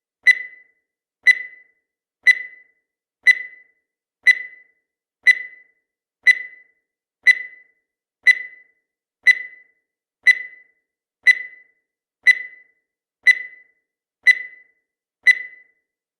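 Countdown timer sound effect: a short, high beep once every second, each one struck sharply and dying away quickly, sixteen in a row at an even pace.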